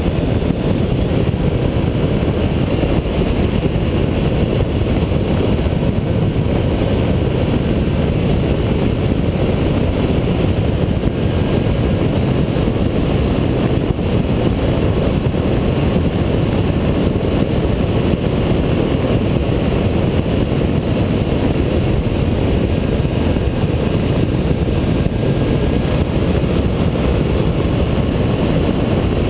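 Steady roar of wind and engine from a Honda ST1300 motorcycle cruising at road speed, with wind rushing over a camera mounted on the bike's fairing.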